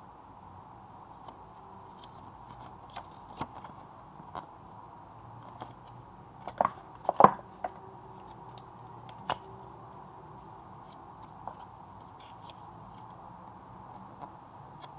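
Cardboard packaging and paper inserts being handled: scattered light taps, knocks and rustles as the box parts are lifted and set down, loudest in a quick cluster about seven seconds in and once more a couple of seconds later.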